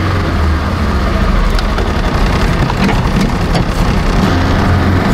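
Side-by-side utility vehicle driving, heard from on board: a steady low engine drone with a few light rattles.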